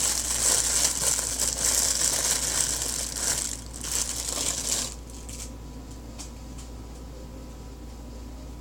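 Clear plastic packaging crinkling as it is pulled open and an item drawn out of it. The crinkling stops about five seconds in, leaving only a few faint rustles.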